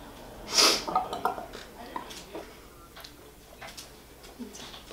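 A glass beer bottle being drunk from and handled: a short breathy sound about half a second in, then light clinks and taps of the glass.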